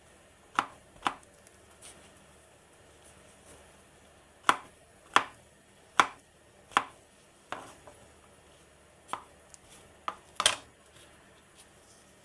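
Chef's knife slicing brown mushrooms on a plastic cutting board: about ten sharp knocks of the blade on the board, irregularly spaced in short runs with pauses between.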